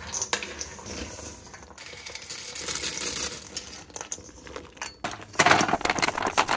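Mixed nuts and pretzels rattling and scraping in a stainless steel bowl as they are stirred with a wooden spoon. About five seconds in, a louder clatter as the mix is poured out onto a paper-lined tray.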